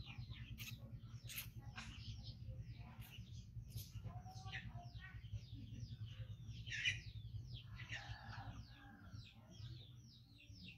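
Small birds chirping continuously in the background, many short high chirps falling in pitch, several a second, over a low steady hum.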